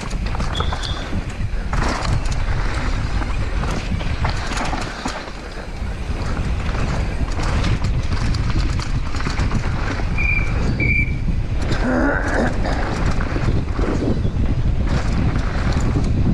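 Downhill mountain bike ridden fast down a dirt trail: wind buffeting the microphone over tyre noise on dirt, with the bike's chain and frame rattling and knocking over bumps. A couple of short high squeaks come about ten seconds in.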